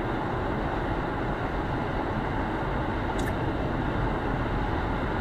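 Steady road and tyre noise of a car driving at freeway speed, heard from inside the cabin. A short click comes about three seconds in.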